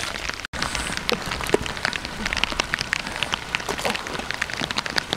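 Dense rustling and crackling of dry grass and rice stubble being handled and knelt on, a steady patter of small clicks. It breaks off in a brief gap about half a second in.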